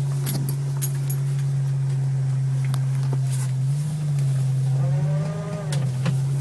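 Jeep YJ's 2.5-litre fuel-injected four-cylinder engine droning steadily under throttle, heard from inside the cab, its pitch rising and falling twice as the revs change while the Jeep slides sideways in snow.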